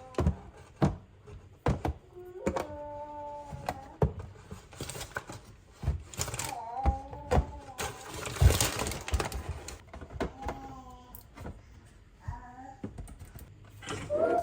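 Sharp knocks, clicks and clatter of household objects being handled and set down, with a few short high-pitched wordless vocal sounds in between.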